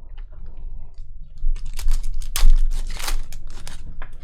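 A trading-card pack wrapper being torn open and crinkled. A dense run of crackles and rustles starts about a second and a half in.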